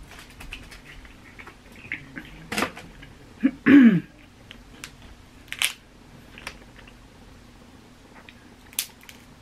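Snow crab leg shells being cracked and snapped apart by hand: scattered sharp cracks and clicks, a few seconds apart. About three and a half seconds in there is a brief falling 'mm' from a voice, the loudest sound here.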